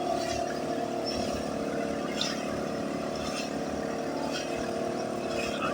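An engine running steadily, an even hum that neither rises nor falls.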